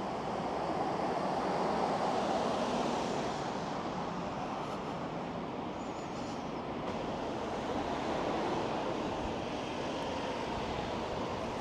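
Steady roadside traffic noise, tyres on a wet road, swelling twice as vehicles pass: about two seconds in and again around eight seconds.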